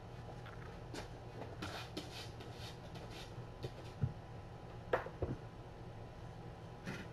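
Room tone: a steady low electrical hum with scattered light rustles, then a few sharp taps and knocks.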